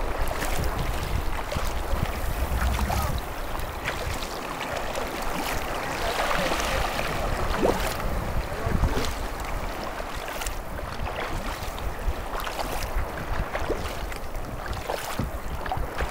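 Choppy water slapping and splashing against a sea kayak's bow as it moves along, in short irregular splashes. Wind rumbles on the microphone, heaviest in the first few seconds.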